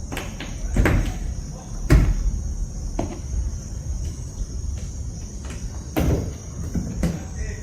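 Plastic trim push rivets being pressed into place around a pickup's tail light: a series of separate sharp clicks and knocks, about five in all, the loudest about two seconds in, over a steady faint high whine.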